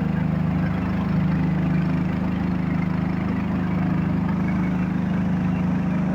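Montoya 3-in-1 compressor running steadily, a continuous engine-like hum at an even pitch.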